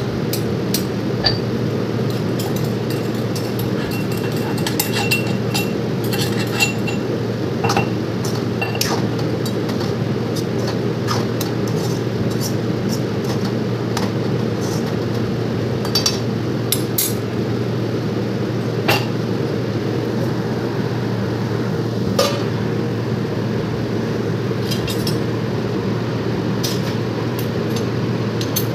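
Kitchen utensil sounds: a steel spatula knocking and scraping in a wok, with scattered sharp clinks of steel utensils over a steady low hum.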